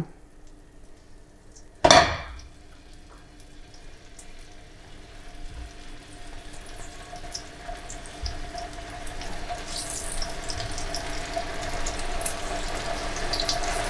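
Raw chicken breasts sizzling as they are laid one by one into a hot nonstick pan of olive oil and melted butter. A sudden loud sizzle about two seconds in, then a hissing, crackling fry that grows steadily louder as more pieces go in.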